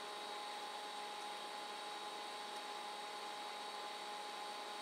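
Steady room tone: an even hiss with a faint electrical hum and a few thin, steady high whines, unchanging throughout.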